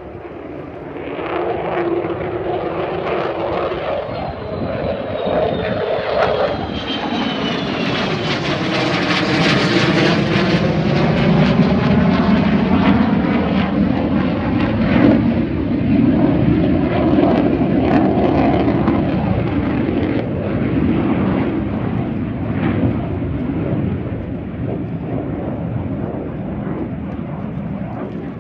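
A military fighter jet flying past low overhead. The engine roar builds, a high whine falls in pitch as it passes, and the roar stays loud before easing off near the end.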